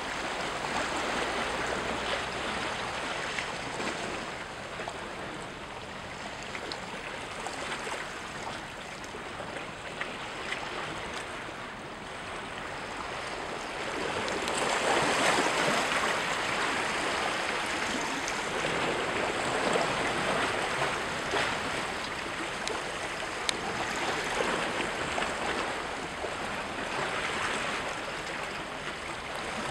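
Small waves washing and splashing against shoreline rocks, a steady watery hiss that swells about halfway through and again a few seconds later.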